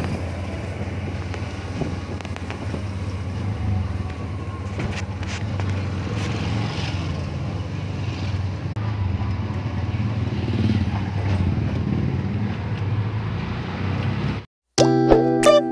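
Motor tricycle's motorcycle engine running steadily with road and wind noise, heard from inside the sidecar while riding. It cuts off suddenly near the end, and guitar music starts.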